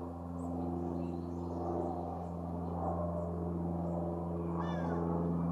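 A steady low hum of several constant pitches runs throughout. Over it come a few faint high bird chirps and, near the end, a louder pitched bird call.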